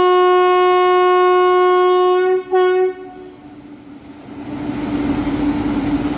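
Electric locomotive's air horn sounding one long steady blast, cut off about two seconds in, then a short second blast: the departure signal. A steady even noise builds up a couple of seconds later.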